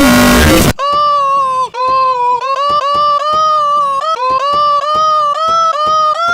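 A brief blast of loud, distorted noise. Then one high pitched tone, chopped into short, rapid repeats about three or four times a second, like a stuttering edit loop.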